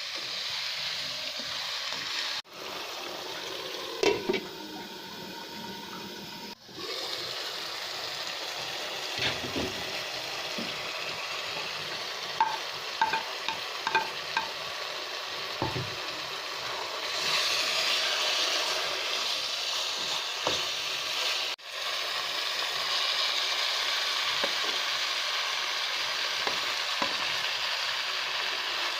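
Food sizzling steadily in a hot pan while it is stirred, with a few light clinks of a spoon against the pan.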